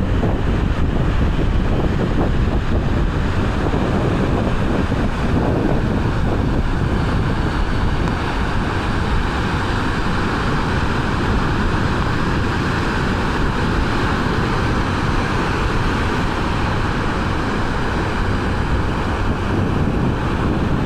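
Wind buffeting the microphone over ocean surf: a steady rushing noise that does not let up.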